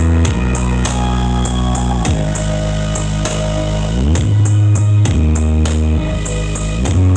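Loud trap-style DJ remix music. A deep bass holds long notes and slides between pitches about every two seconds, over a steady ticking hi-hat beat.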